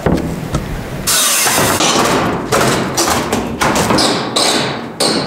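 Old wooden subfloor being torn up by hand with a long-handled tool: a run of rough scraping and thudding strokes, about one every two-thirds of a second, starting about a second in.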